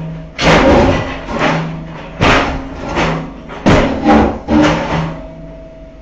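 Backhoe bucket striking and breaking concrete patio slabs and tiles: a run of loud crashing impacts, roughly one a second, over the machine's engine running. The impacts fade out about a second before the end.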